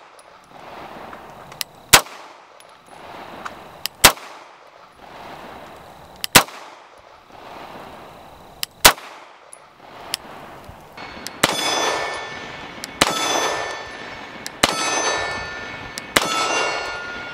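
Beretta M9A4 9mm pistol firing slow single shots, four of them about two seconds apart. After that the shots come a little faster, each followed by a metallic ringing clang.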